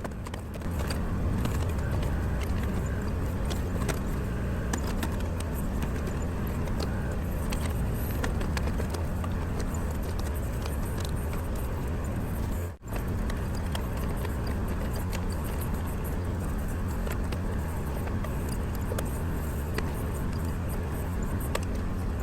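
Kubota L2501 compact tractor's three-cylinder diesel engine running steadily, with faint light ticks and rattles over it and a brief break about halfway through.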